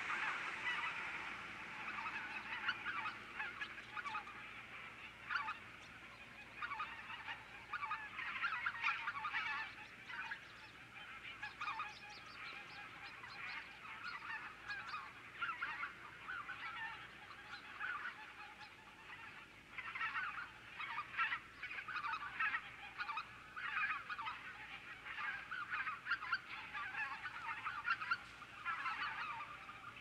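A flock of wild geese calling: many overlapping honks that swell and ease every few seconds without a pause.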